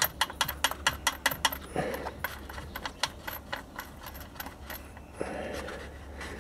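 A quick run of light metallic clicks for about a second and a half, then scattered clinks and a short rustle near the end, as a bolt and nut under a car are worked by hand.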